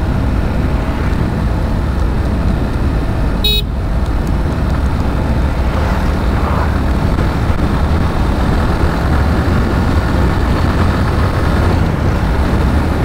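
Motorcycle on the move along a highway: a steady rush of wind on the microphone over the engine and road noise. A brief click comes about three and a half seconds in.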